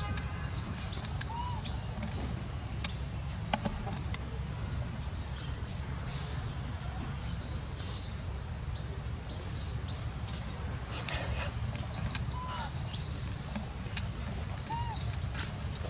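Outdoor woodland ambience: a steady high-pitched buzzing, typical of insects, over a low rumble. A few short bird chirps come about a second and a half in and twice near the end, with scattered small clicks and rustles.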